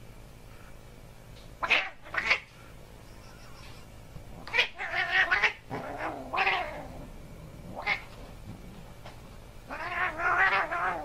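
Tabby house cat yowling in a series of drawn-out, wavering calls: two short ones about two seconds in, a longer run around five to six seconds, a short call near eight seconds, and a long call near the end that falls in pitch.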